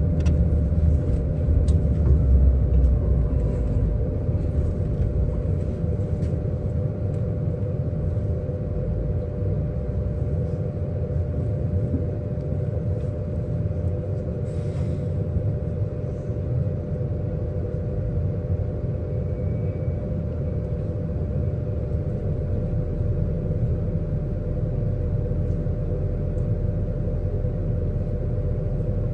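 Steady low rumble with a constant mid-pitched hum from a stationary BYD K8 battery-electric bus and the street traffic around it, with a short hiss about halfway through.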